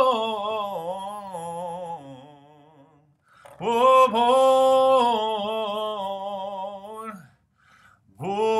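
A recorded male voice singing alone, played back dry without effects through a cheap microphone. It holds long notes with a wavering pitch: a falling note that fades out, a short pause, a second long note, and a third note starting near the end.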